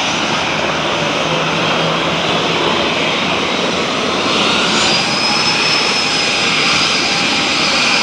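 Boeing 737-700's CFM56-7 turbofan jet engines running at taxi power: a loud, steady rush. A thin high whine grows stronger about halfway through as the engine intakes swing toward the listener.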